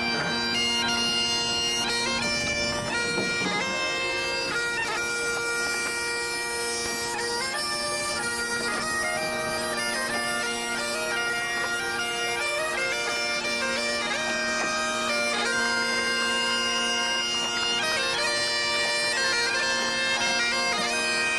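Biniou braz (Breton bagpipe) playing a tune, its melody stepping from note to note over steady drones.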